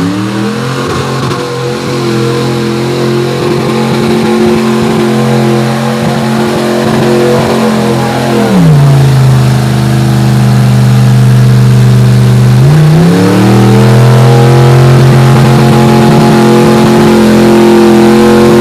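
Mud-bog pickup truck's engine revving hard under load as its tires churn through deep mud. The revs climb in the first second and hold high, drop for about four seconds midway, then climb back and hold high again.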